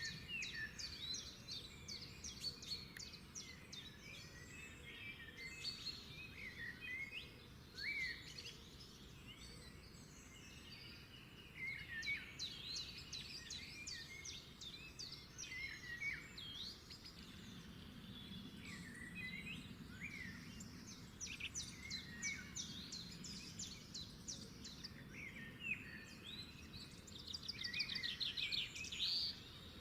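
Several small songbirds chirping and twittering continuously in quick, overlapping calls, with a fast trill near the end.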